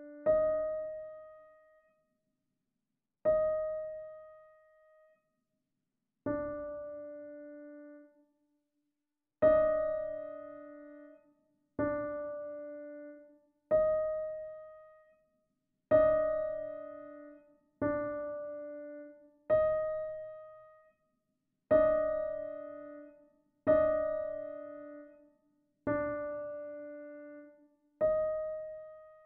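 Piano repeatedly sounding a minor ninth interval, a low note and a note an octave and a semitone above it. The interval is struck every two to three seconds and each time left to ring and die away.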